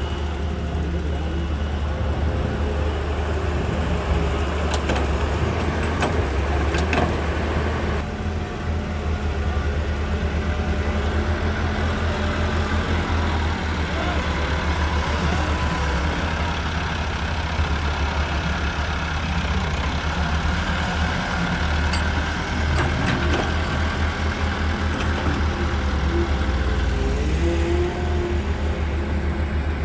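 Diesel engine of a Hyundai 130W wheeled excavator running steadily, with a few sharp clicks a few seconds in.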